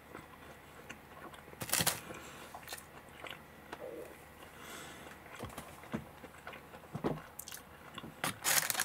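A person chewing a mouthful of Pizza Hut Gratin Hut Melts, a cheese-and-gratin filled pizza pocket dipped in sauce, with scattered soft crunches of the baked crust. The crunches are denser and louder near the end.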